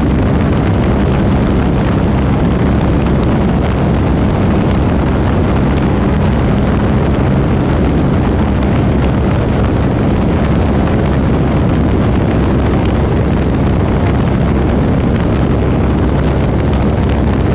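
Light propeller airplane's engine and airflow, a loud steady drone heard from on board.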